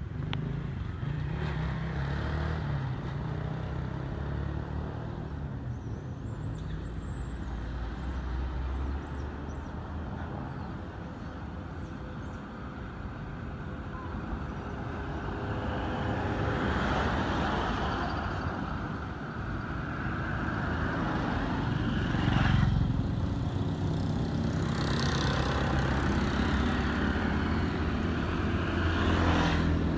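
Road traffic: motor vehicle engines running and passing, a continuous low hum that swells about halfway through and again near the end.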